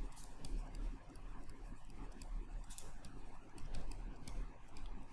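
Pen stylus tapping and scratching on a tablet while handwriting: irregular light clicks and scrapes, over a low steady hum.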